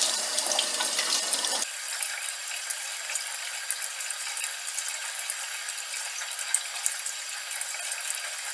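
Cold tap water running in a steady stream into a kitchen sink and splashing over hands as they knead and rinse a lump of freshly churned butter to wash out the buttermilk.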